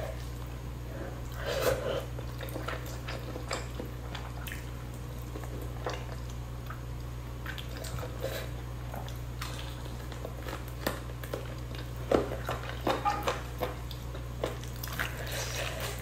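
Close-miked eating: fingers tearing meat off a whole spicy chicken and wet chewing, with scattered short clicks and smacks that come thicker about twelve seconds in, over a steady low hum.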